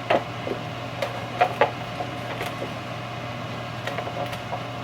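A few light clicks and taps from handling an instant-noodle cup and its lid, over a steady low hum.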